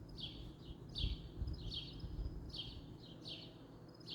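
High chirping calls from a small animal, repeated in a steady rhythm about once a second, often in quick pairs, over a low rumble.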